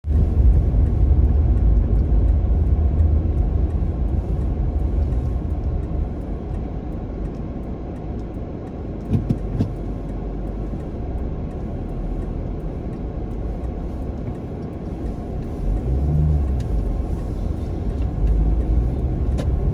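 Steady low rumble of a car driving through snow, engine and tyre noise heard from inside the cabin, with a couple of brief knocks about nine seconds in.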